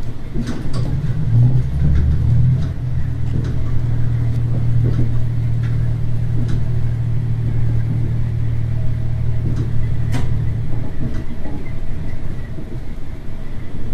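Diesel railcar running along the line: a steady low engine drone under power over rumbling wheel and track noise, with scattered sharp clicks. The engine drone drops away about eleven seconds in, leaving the running rumble.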